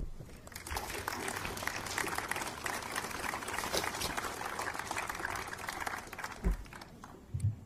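Audience applauding: clapping builds about a second in, holds steady, then thins out near the end, with a low thump near the end.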